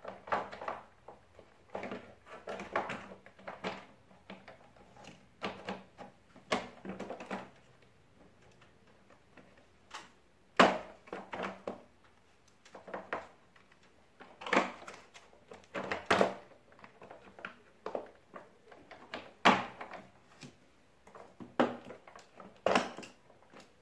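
White plastic housing of a split air-conditioner's indoor unit being handled and pushed back into place, knocking and clicking irregularly. The loudest knock comes about ten and a half seconds in, with several more strong ones a few seconds later.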